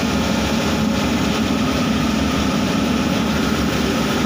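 Steady machine running noise: a constant hum with an even hiss over it, unchanging throughout.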